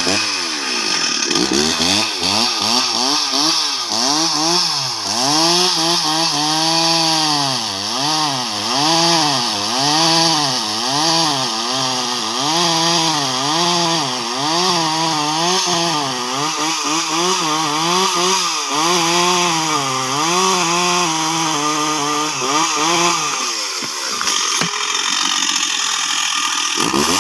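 Stihl two-stroke chainsaw running at high revs while rip-cutting a large log lengthwise, its engine note rising and falling about once a second. A little before the end the pitched note drops away and only a rougher running sound remains.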